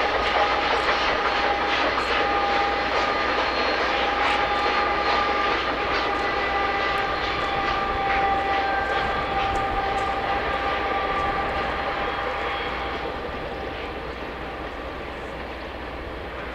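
Union Pacific Big Boy 4014 steam locomotive and its passenger cars running past at a distance: a steady mechanical rush with a few steady high tones and faint scattered clicks over it, fading over the last few seconds.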